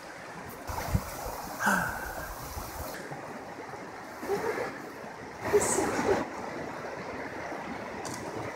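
Steady rush of a flowing river, with a few brief louder sounds, the loudest a little past halfway.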